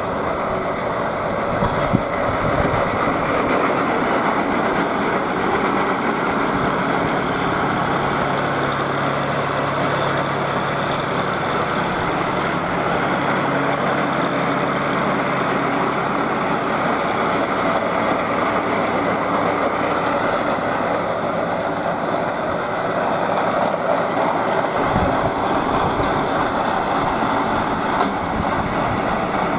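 John Deere 5050D tractor's three-cylinder diesel engine running steadily while it pulls and drives a Kartar baler, with the baler's machinery working.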